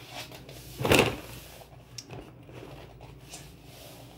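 Objects being handled: one louder knock or scrape about a second in, then a few faint knocks.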